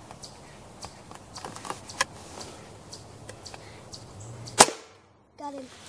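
A single shot from a .25 caliber Air Venturi Avenger regulated PCP air rifle: one sharp crack about four and a half seconds in, over faint background with a few light ticks before it.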